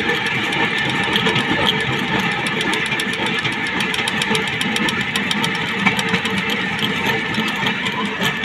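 Railway track-inspection trolley running along the rails: a steady mechanical rumble of its wheels and running gear.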